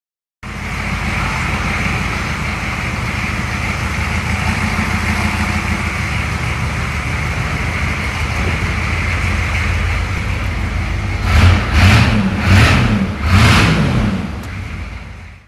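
1987 Chevy Suburban's 6.2-litre Detroit Diesel V8 idling steadily, then revved in four quick blips near the end.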